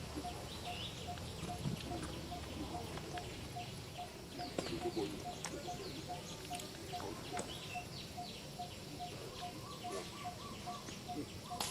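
Many short, high chirping calls, each falling in pitch, over a faint steady ticking about two or three times a second.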